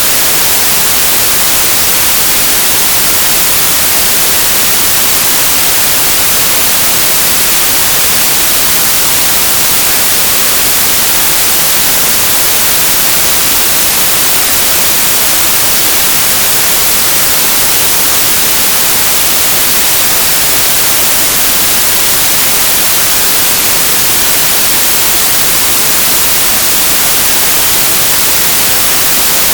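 Steady synthesized white noise: an even, bright hiss with a flat spectrum, unchanging throughout.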